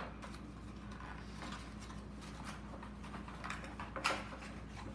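Packaging and accessories being handled on a table: light rustling and small clicks, with a sharper click about four seconds in as a black accessory case is opened.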